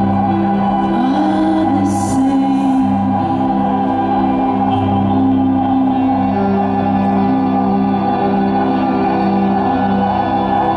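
Live band playing a slow, droning ambient passage: electric guitar tones held over a low sustained note, with a short upward sliding tone about a second in.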